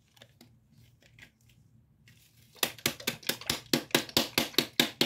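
Light scattered clicks, then about two and a half seconds in a rapid, even run of sharp taps begins, about five a second.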